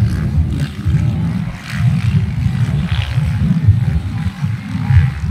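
Low, uneven rumble of enduro dirt bike engines running on the track at a distance.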